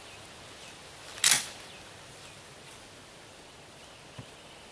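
A single shotgun shot about a second in, one short sharp crack that dies away quickly: a handloaded buckshot round of 18 pellets of .31-caliber buckshot over a TPS cushion wad.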